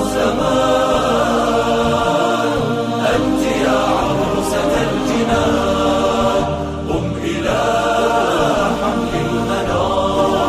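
Arabic nasheed sung a cappella by layered male voices in a choir-like blend over a steady low vocal drone, with no instruments.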